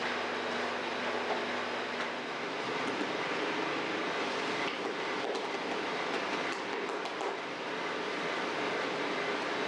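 Steady running noise of bakery machinery, with a low hum that drops out about two seconds in and a few light clicks around the middle.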